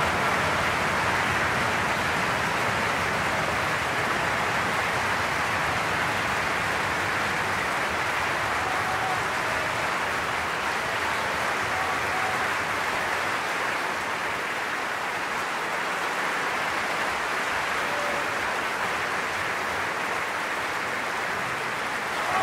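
Opera house audience applauding steadily, a dense, even clapping.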